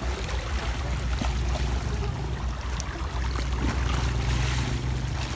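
Steady low wind rumble on the microphone over water washing against the shoreline rocks.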